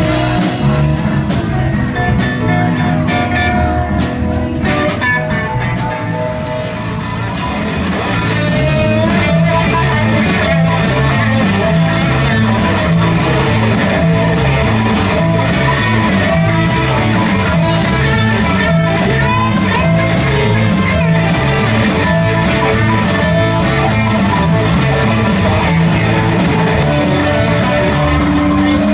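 Live blues-rock band playing an instrumental passage: electric guitar, keyboard, drum kit and a low bass line walking up and down in a repeating pattern. The sound thins briefly about six seconds in, then the full band comes back in with steady drums.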